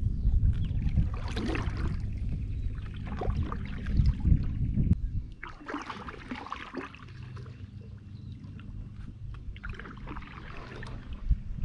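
Kayak paddle strokes: the blade dipping and splashing in the water in a series of strokes a second or two apart, with a pause in the middle. A low rumble runs under the first half.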